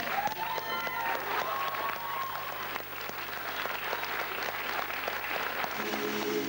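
Theatre audience applauding as a number ends, the dense clapping carrying most of the way through, with a voice calling out over it in the first two seconds. Near the end, music with steady held notes starts up.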